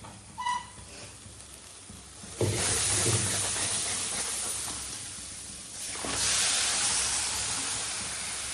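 Ingredients tipped into hot oil in a cooking pan, sizzling loudly, starting suddenly a couple of seconds in and surging again near the end.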